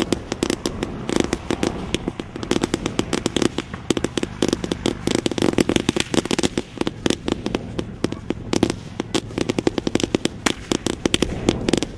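A huge pile of firecracker rolls, about 100,000 firecrackers, going off in a dense, continuous run of rapid bangs and crackles, uneven in loudness.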